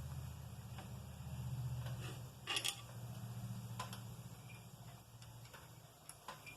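Milling machine running with its boring head spinning, a low steady hum, on a very light finishing cut. A few light metallic ticks and clinks sound over it, the loudest about two and a half seconds in, and the hum weakens near the end.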